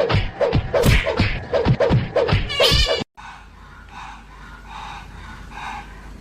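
Music with a fast, punchy beat that cuts off abruptly about three seconds in, followed by a much quieter stretch of faint, soft repeated sounds.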